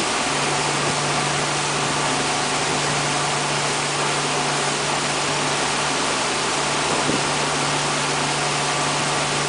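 Boat's inboard engine running steadily under way with a low, even hum, under the loud rush of the churning wake water.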